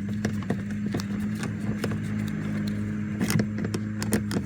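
Scattered light clicks and taps of a screwdriver loosening a screw down inside a Mercedes W126's interior door handle, over a steady low hum.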